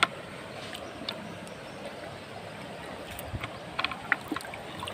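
Shallow river water flowing steadily, with a few small splashes and clicks about three to four seconds in.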